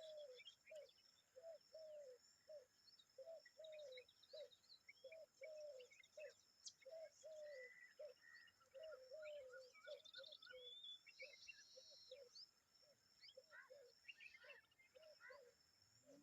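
Faint bird calls: a steady run of short, low arched notes, two or three a second, with scattered high chirps and twitters over them.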